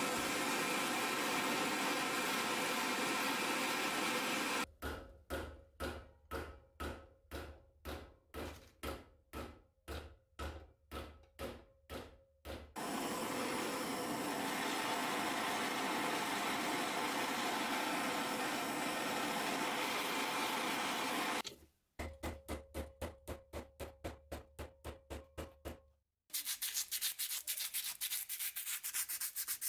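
Steady hiss of a gas blowtorch flame heating a steel knife guard, broken twice by stretches of rhythmic pulsing, first about two a second, then faster. Near the end, quick back-and-forth hand sanding of the steel part with sandpaper.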